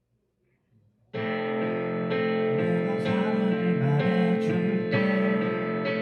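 Near silence, then about a second in a live band's song starts abruptly with sustained keyboard chords, the notes ringing on with a few sharper note attacks later.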